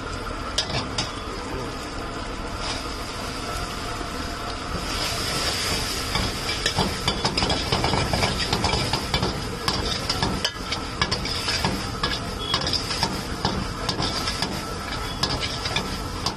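Chilli sauce and fries sizzling in a steel wok, the sizzle growing stronger about five seconds in. The metal ladle scrapes and clicks against the wok again and again as the fries are stirred and tossed.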